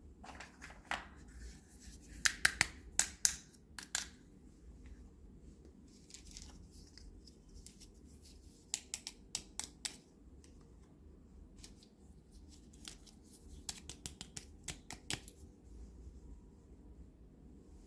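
Small plastic toy kitchen pieces being handled, with sharp clicks and taps in three quick clusters: a few seconds in, about halfway through, and again a few seconds before the end.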